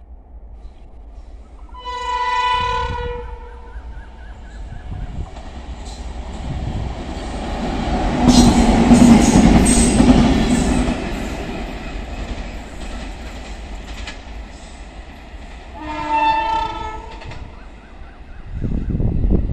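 A pair of WAP7 electric locomotives running light, without a train, sound their horn in one blast of about a second and a half, then pass close by with a rising and falling rumble and wheels clattering over the rail joints. A second horn blast follows about 16 s in as they draw away. Near the end a loud low rumble begins.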